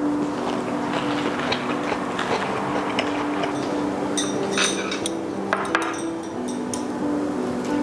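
Chopsticks clicking and clinking against ceramic plates and bowls, a quick cluster of taps between about four and six seconds in, over background music.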